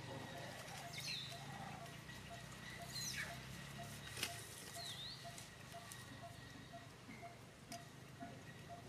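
Three brief, faint, high chirping squeaks from a small animal, about one, three and five seconds in. Behind them a soft note repeats about twice a second, and there is a single sharp click about four seconds in.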